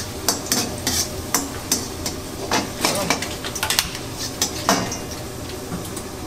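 Garlic sizzling in hot oil in a wok over high heat, while a metal utensil stirs it, scraping and clacking against the pan about two or three times a second in an irregular rhythm.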